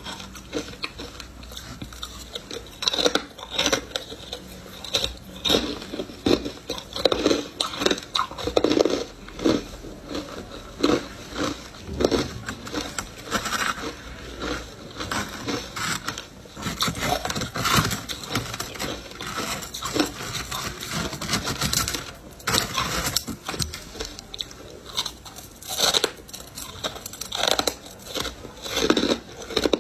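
Ice coated in matcha powder being bitten and chewed close to the microphone: irregular crisp crunches and cracks, with softer grinding and crackling between bites.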